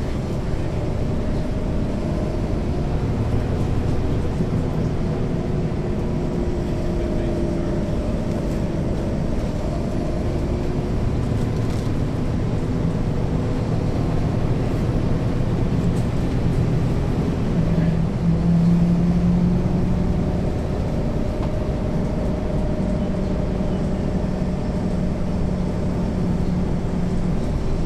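Caterpillar C13 diesel engine of a NABI 40-SFW transit bus, heard from the rear seats inside the bus as it drives. The engine drone climbs in pitch and gets louder about two-thirds of the way through, then holds steady.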